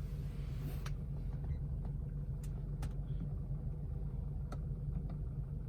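BMW F30 idling with a steady low engine hum, a few faint clicks over it.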